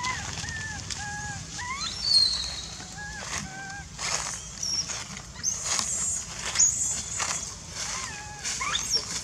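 A baby monkey crying up in the trees: a string of short, pitched calls, some arching and some rising sharply in pitch, repeated every second or so. Some higher chirps and sharp rustling noises are heard among them.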